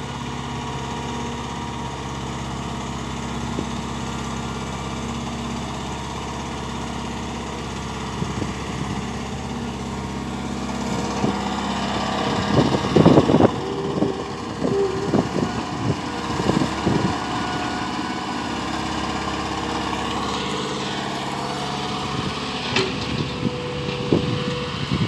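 ATLAS excavator's diesel engine running steadily. From about halfway in there is a stretch of irregular louder knocks and scrapes.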